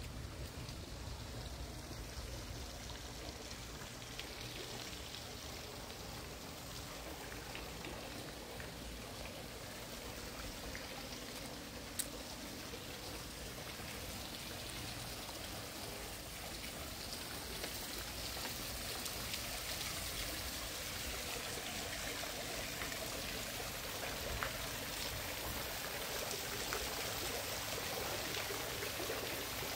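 Steady running and splashing water from a backyard swimming pool's circulation outflow, growing a little louder in the second half. There is a single sharp click about twelve seconds in.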